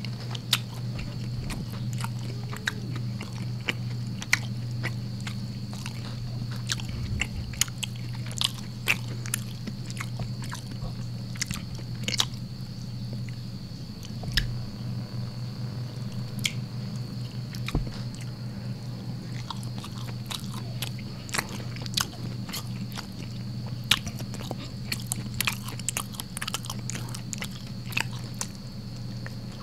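A person chewing mouthfuls of rice and side dishes close to the microphone, with many short, sharp, wet mouth clicks scattered throughout, over a steady low electrical hum.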